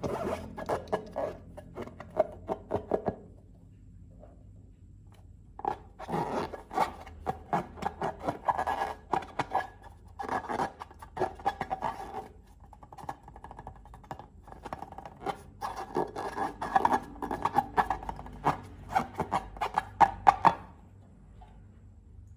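Slime being squeezed and worked by hand, crackling with rapid little pops and squelches in three spells with short pauses between.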